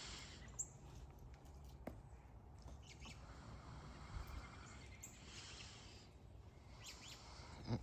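Faint outdoor ambience with a few short, soft clicks and brief rustles.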